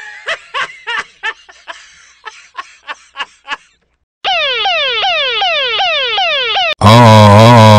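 A cartoon voice laughing in short bursts that fade away. Then an electronic alarm of quickly repeating falling sweeps, about three a second. Near the end it is cut off by a much louder, harsh, wavering siren-like alarm.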